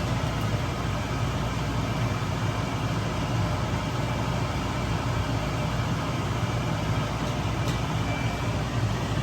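A steady low hum with an even rushing noise over it, unchanging throughout.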